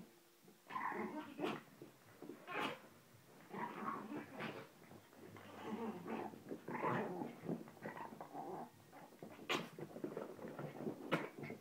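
Small chihuahua-type dogs growling in play, in repeated bursts of a second or so.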